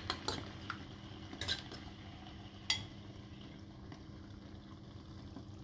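A fork stirring and scraping egg mixture in a frying pan: a few light taps and scrapes against the pan over the first three seconds, then only a faint, steady sizzle of frying.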